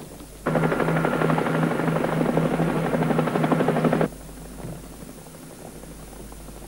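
Helicopter rotor beating at about four to five beats a second under a steady turbine whine. It cuts in about half a second in and stops abruptly about three and a half seconds later.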